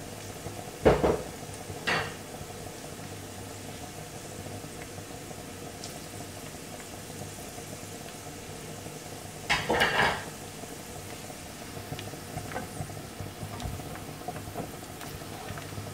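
Chopped onions and spices sizzling softly in oil in a nonstick frying pan. Two sharp knocks come about a second in, a brief clatter near the middle, and a wooden spatula stirring toward the end.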